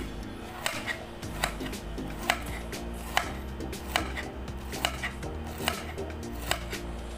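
Kitchen knife slicing a cucumber on a plate, each cut ending in a sharp click of the blade against the plate, evenly paced at about one every 0.8 seconds. Music plays underneath.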